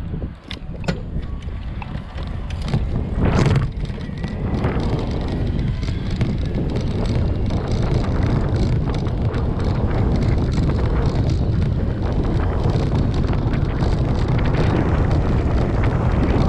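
Wind buffeting a bicycle-mounted camera's microphone as the bike pulls away and picks up speed, over the rumble of its tyres on a paved cycle path. A few clicks in the first second and a louder bump about three and a half seconds in.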